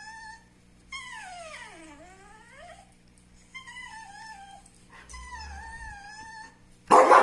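A dog whining in a series of high, wavering whines, one of them a long whine that falls in pitch and then rises again. A sudden loud burst comes right at the end.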